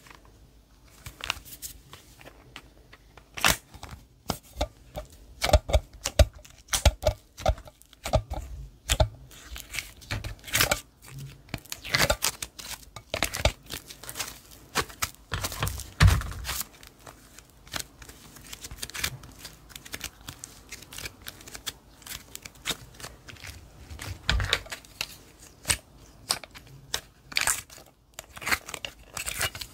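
Sticky slime being squished and stretched by hand, giving irregular crackles and small pops throughout.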